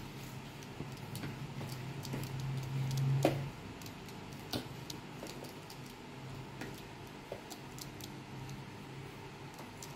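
Scattered light ticks and taps as a Eurasian tree sparrow hops on a table and pecks at a cold glass bottle, over a low steady hum that drops away about three and a half seconds in.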